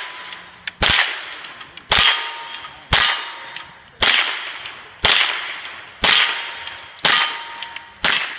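A steady string of gunshots, about one a second, eight in all. Several are followed by the brief ring of a steel target being hit.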